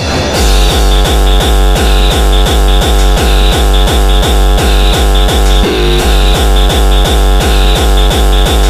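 Hard electronic dance music: a heavy, distorted kick drum pounding about three times a second under dense synthesizer layers.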